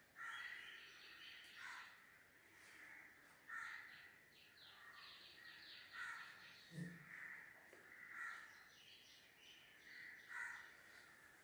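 Near silence, with faint bird calls coming in short repeated bursts, one every second or two.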